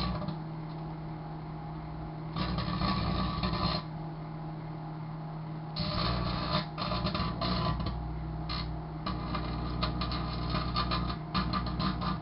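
Sharp Carousel microwave oven running with a steady hum, broken by long stretches of dense crackling from sparking and arcing as packaged condoms heat inside. The crackling comes in once briefly, then from about halfway through almost continuously.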